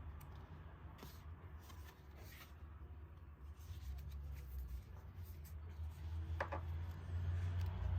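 Handling of album packaging: faint rustling, sliding and scraping of paper and card, with a short squeak about six and a half seconds in, over a steady low hum.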